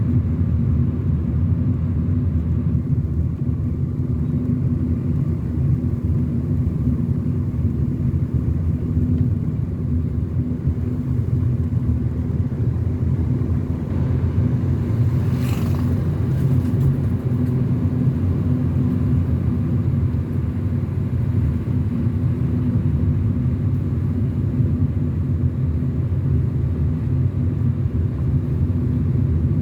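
Car driving down a winding mountain road: steady low road and engine rumble. A brief falling swish comes about halfway through.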